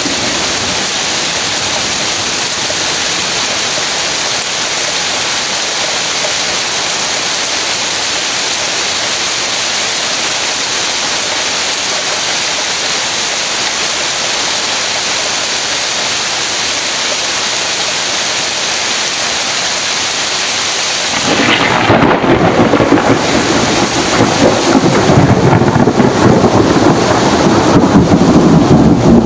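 Torrential rain falling steadily. About two-thirds of the way in, thunder breaks in suddenly and loudly and rumbles on, growing louder towards the end.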